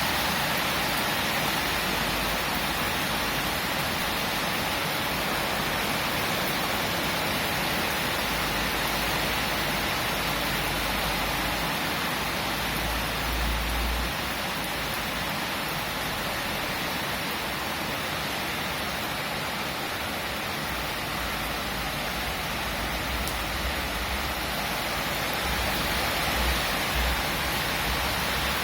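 Steady rain falling, an even hiss of drops with a faint low rumble now and then.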